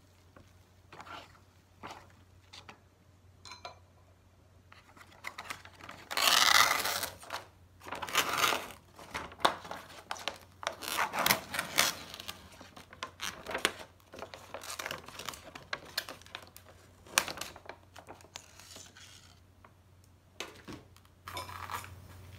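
Wooden chopsticks stirring instant ramen noodles in a plastic tub of hot water, scraping and clicking against the tub, with crinkles from a handled seasoning packet. The sounds come irregularly, the loudest burst about six seconds in, over a faint steady hum.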